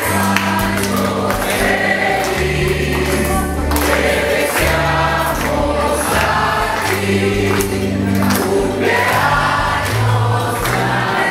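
Music: a choir singing over sustained bass notes.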